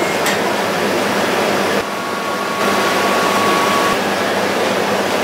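Gelato batch freezer running, a steady mechanical noise, as freshly churned gelato is extruded from its spout into a steel pan.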